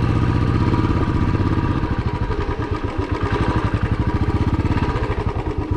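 Royal Enfield Classic 350's single-cylinder engine running with a steady, even exhaust beat, slightly quieter after about two seconds.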